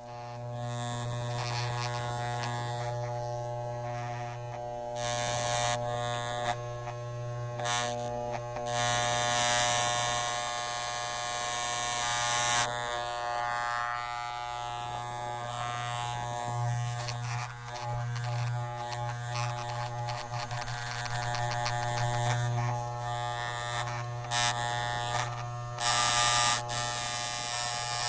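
Electric hair clipper running with a steady buzz, broken several times by bursts of hiss, the longest lasting about four seconds around ten seconds in.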